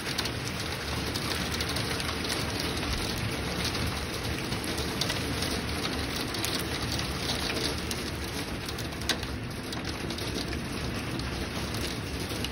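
Torrential wind-driven rain mixed with small hail from a supercell thunderstorm, pelting a wooden deck and a picnic table as a dense, steady hiss full of fine pattering ticks, with wind gusting on the microphone. One sharper tap stands out about nine seconds in.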